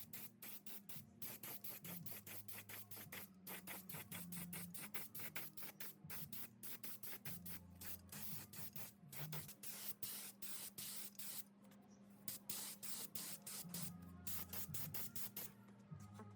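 Spray hissing in short, quick bursts, several a second, with a brief pause about two-thirds of the way through, typical of spray-painting restored parts.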